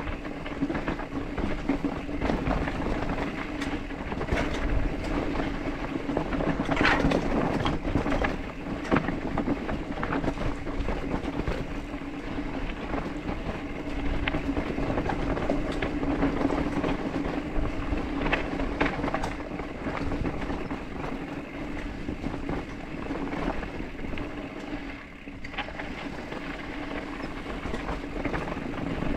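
Mountain bike descending a rough dirt trail: a continuous rushing rumble of tyres on dirt, with frequent rattles and knocks from the bike over bumps. A steady buzz runs underneath and drops out briefly about 25 seconds in.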